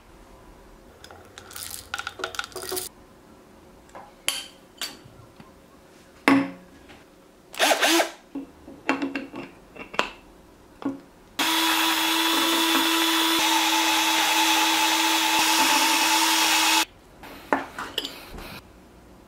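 An electric drill spinning a Porlex Mini hand coffee grinder to grind coffee beans: a loud, steady run of about five and a half seconds with a steady hum under it, starting about eleven seconds in and cutting off suddenly. Before and after it, short clicks and knocks of the grinder and drill being handled.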